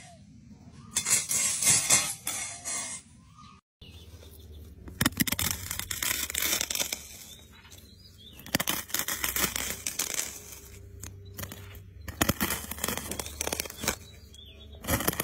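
Apple snail egg clutches being crushed, crackling and popping in uneven bursts. First a flat blade presses them against concrete; after a brief gap about four seconds in, a clear sheet squashes another clutch.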